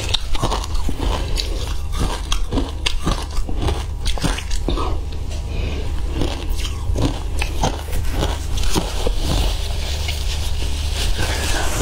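Ice dusted with matcha powder being bitten and crunched, heard close up: a run of irregular sharp crunches, over a steady low hum.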